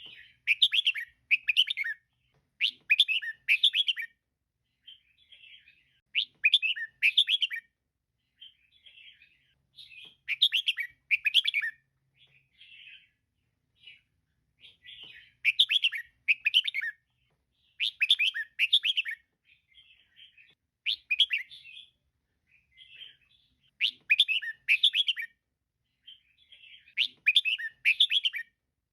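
Female red-whiskered bulbul calling: short phrases of quick chirping notes repeated every second or two, with softer chatter between them.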